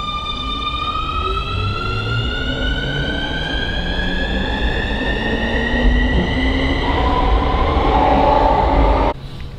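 Tokyo subway train pulling away: its electric traction motors whine in several tones that rise steadily in pitch as it accelerates, over a low rumble. The sound grows louder, then cuts off suddenly near the end.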